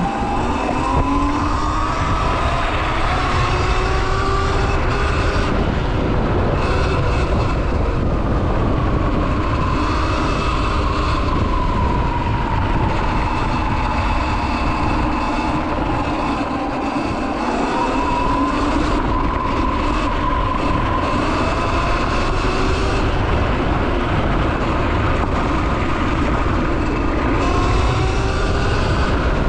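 Sur Ron X electric dirt bike's motor whining under way, rising in pitch as the bike speeds up in the first couple of seconds, wavering as speed is held, and climbing again near the end. Heavy wind noise on the microphone runs underneath.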